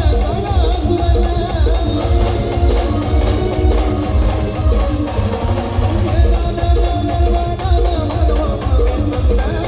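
Brass band playing a melody over a steady, heavy drum beat.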